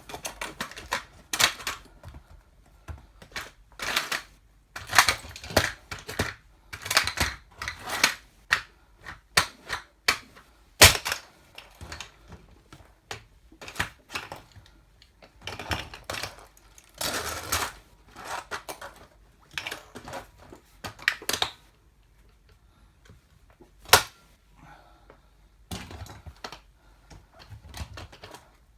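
Plastic toy car cracking and crunching under high-heeled platform shoes: a long run of irregular sharp cracks and clicks, with a loud single crack about eleven seconds in and a short lull a little after twenty seconds.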